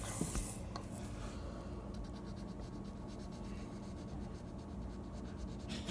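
Felt-tip scented marker scratching on paper, coloring in a picture.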